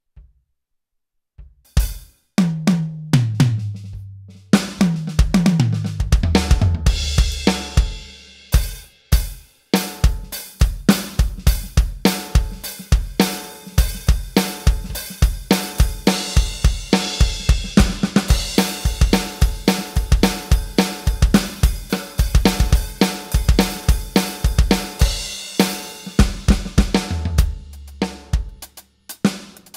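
Roland VAD706 V-Drums electronic drum kit played with sticks. It opens with tom fills stepping down from high to low toms, settles into a steady beat of kick, snare, hi-hat and cymbals, and ends on another low tom fill before stopping.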